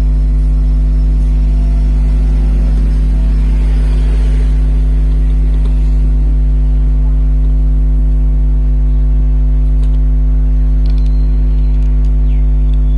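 Loud, steady electrical mains hum with its overtones, unchanging throughout. Under it there is faint scraping about four seconds in and a few small clicks near the end, a screwdriver working the tabs of a table fan's sealed bush lock.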